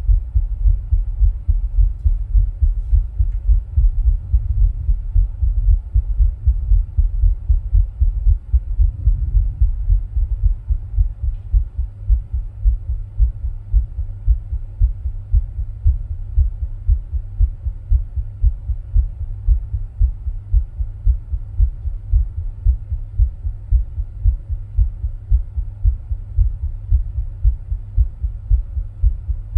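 A person's heartbeat recorded at the chest, with low beats following in a steady, even rhythm. It is heard while he rebreathes his own air from a plastic bag.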